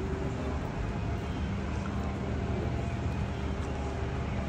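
Steady city street ambience: a continuous low rumble with a faint steady hum through it, and no single event standing out.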